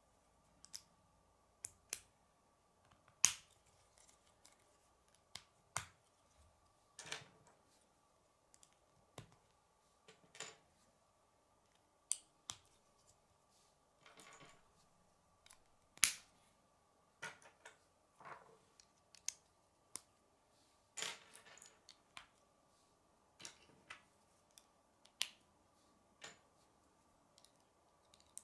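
K'nex plastic rods snapping into a connector and pieces clicking as they are handled: irregular sharp plastic clicks a second or two apart.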